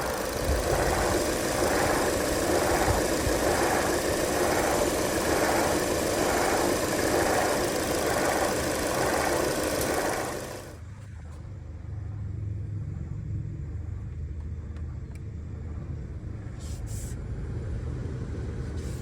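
2011 Chevy Cruze idling with the AC on: a loud whirring noise, swelling about once a second, from the AC compressor, which the owner blames for the noise. It cuts off suddenly about eleven seconds in, leaving the engine idling more quietly.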